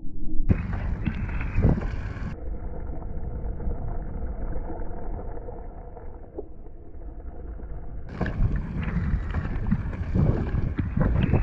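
Off-road inline skates on air-tyre wheels rolling over a dirt trail, a steady low rumble with wind buffeting the microphone.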